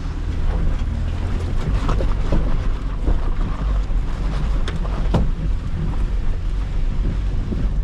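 Strong gusty wind from an approaching storm buffeting the microphone, a heavy low rumble with a few sharp knocks about halfway through.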